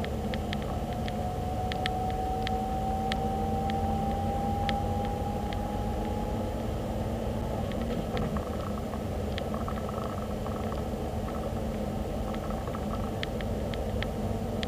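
Car driving: steady road and engine rumble, with a whine that rises slowly in pitch over about the first seven seconds and then stops. Scattered sharp clicks come through throughout.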